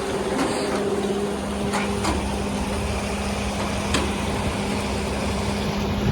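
An engine idling with a steady hum, with a few short sharp knocks about two and four seconds in.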